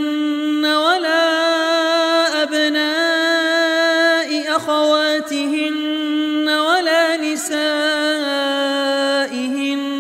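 A man's voice chanting Quran recitation in a melodic style, drawing out long held notes. Each new phrase starts with a short sliding, ornamented rise in pitch.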